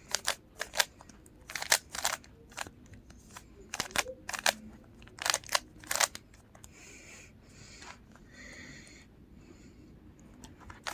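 Plastic Rubik's Cube being turned fast by hand, its layers clicking and clacking in quick runs of turns with short pauses between them.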